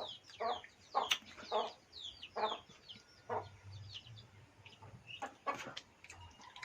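Chicken clucking in a series of short calls, about one or two a second, with high falling cheeps mixed in. The calls thin out after about three and a half seconds, and a few sharp clicks follow.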